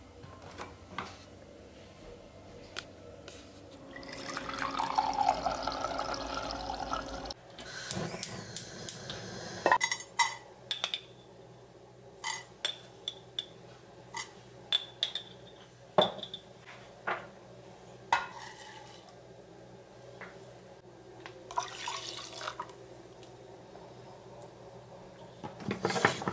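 Kitchen sounds of making porridge: liquid poured in a steady stream for about three seconds, followed by many light clicks and knocks of utensils against a saucepan.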